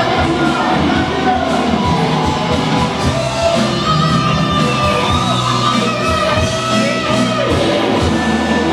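Live rock band playing, with a singer, guitars and drums.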